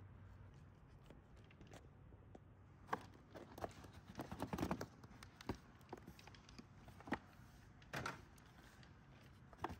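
Hand work on a car bumper cover: scattered light clicks, knocks and rustles as plastic brackets and foam pads are pulled out. The clicks start about three seconds in and are busiest a second or two later, with a few more near the end.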